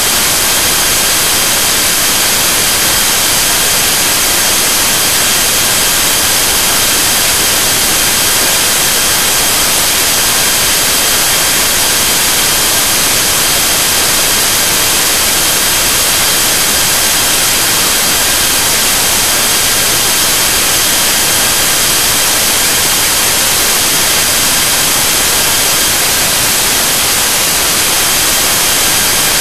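Loud, unchanging electronic static hiss, strongest in the treble, with a faint set of steady high-pitched whining tones running through it.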